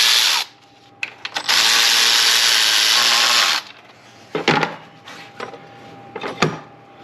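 A handheld power tool runs in two bursts, the first ending just after the start and the second lasting about two seconds, followed by a few short metallic tool clicks.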